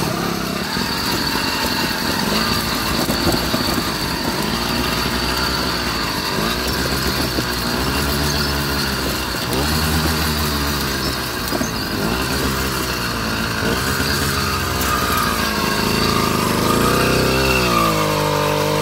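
A small engine running steadily, its pitch rising and falling every second or two as it revs up and down.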